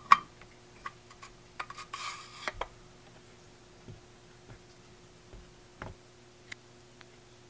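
Scattered light clicks and taps, with a brief scrape about two seconds in, as a SignalLink USB's circuit board is slid back into its case and the front panel is screwed on with a hex-key driver. A faint steady hum runs underneath.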